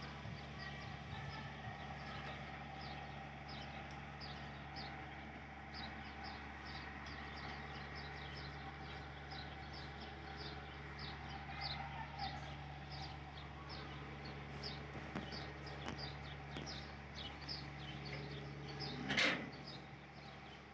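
Steady mechanical hum with small birds chirping over it, two or three chirps a second throughout. Near the end, one short, loud squeal sweeps down in pitch.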